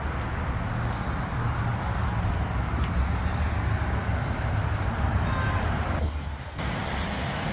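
Pickup truck engine running with a steady low rumble, dipping briefly about six seconds in before the sound changes abruptly.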